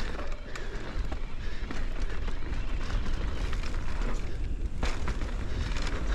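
Ibis Oso electric mountain bike descending a dirt forest trail: wind buffeting the camera microphone over the rumble of knobby tyres on dirt and small rocks, with scattered rattles and clicks from the bike and a sharper knock about five seconds in.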